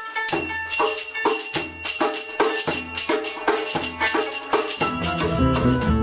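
Acoustic folk music: a string instrument rings out repeated bright notes about twice a second. Near the end it gives way to a fuller band sound with guitar and bowed bass.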